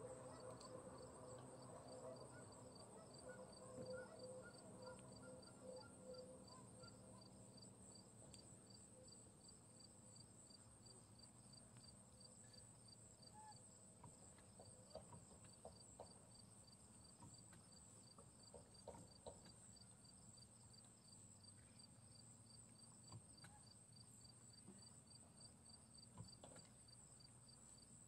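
Faint insects chirping in a fast, even pulse over a steady high buzz. A faint pitched hum fades away over the first several seconds, and a few soft clicks come later.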